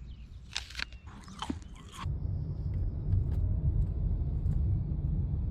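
Crunchy bites and chewing of food for about two seconds. Then a sudden switch to a steady low rumble of a car on the road.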